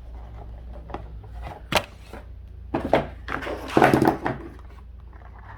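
Handling noises as the plastic LED bubble wand is taken up and moved about: a sharp knock a little under two seconds in, then several knocks and a rustle around four seconds in, over a steady low hum.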